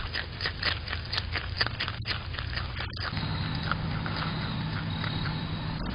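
Groundhog chewing food, a quick run of crunchy clicks at about four to five a second, picked up by a security camera's microphone. A steady low hum joins about three seconds in.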